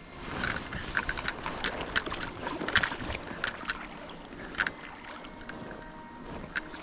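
Creek water splashing and sloshing close by, with irregular sharp splashes, denser in the first half.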